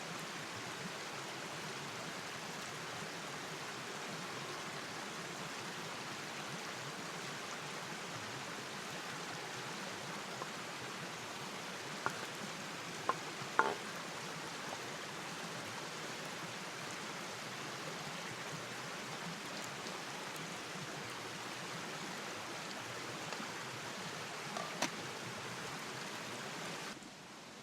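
Steady watery hiss of rain or running water, with a few sharp clicks about halfway through and again near the end. The hiss drops away suddenly just before the end.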